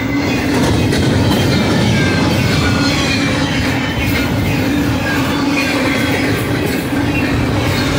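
Steel wheels of BNSF double-stack container well cars rolling past at speed: a loud, steady rumble of wheels on rail with light knocks from the rail joints, and thin wheel squeals sliding down in pitch now and then.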